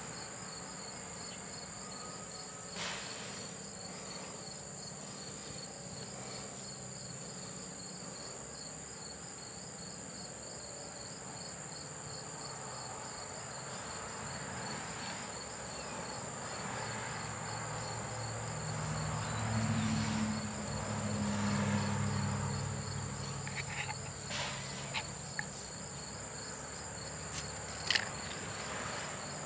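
Outdoor insect chorus: a steady high trill with a second, pulsing trill a little lower. A low rumble swells and fades in the middle, and a few sharp clicks come near the end as a knife cuts bungee cord against a wooden stump.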